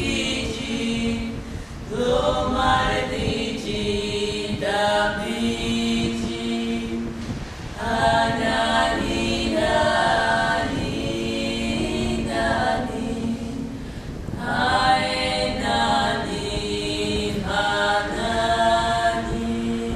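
Four women singing a cappella in Georgian polyphony: a low note is held as a steady drone under upper voices that move in phrases a few seconds long.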